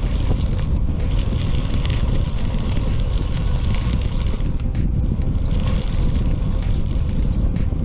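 Wind rumbling steadily on the microphone of a moving bicycle, over the hiss of its tyres rolling on a gravel trail. The hiss briefly drops away about five seconds in.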